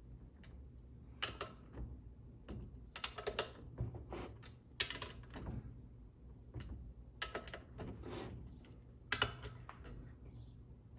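Socket ratchet wrench clicking in short runs as bolts on a small engine are tightened by hand, with a steady low hum behind.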